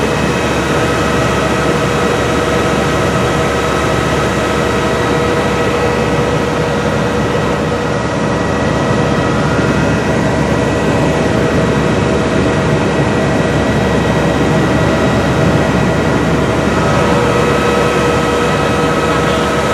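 Steady jet-aircraft noise on an airport apron: a constant roar with several high, steady whines, typical of an airliner's auxiliary power unit or engines running nearby. The sound goes briefly muffled midway, then clears.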